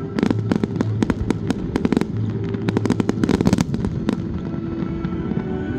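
Fireworks display: rapid volleys of sharp bangs and crackling pops from aerial shells, dense through the first four seconds and thinning to a few scattered bangs toward the end.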